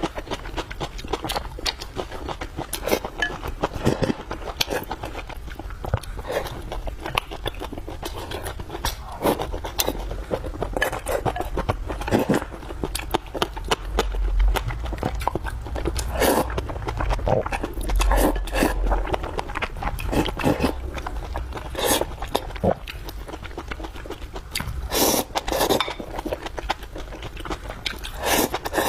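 Close-miked eating sounds: a person chewing and biting food, with a steady run of irregular wet clicks and mouth smacks.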